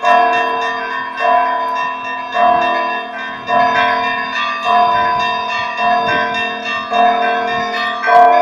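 Russian Orthodox monastery bells rung in a peal (zvon). A deeper bell strikes steadily about once a second, while smaller bells chime quickly in between, their tones ringing on and overlapping.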